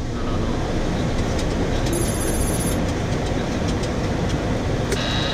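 Steady rush of airflow and engine noise inside a Boeing 737-400 cockpit on approach. Near the end a repeating high alert tone starts sounding: the autopilot disconnect warning.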